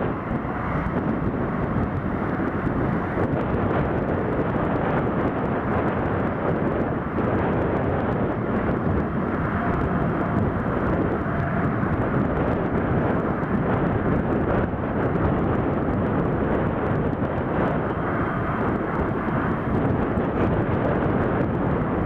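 Valtra 8050 tractor's diesel engine working steadily under load while ploughing, a continuous even drone with no breaks.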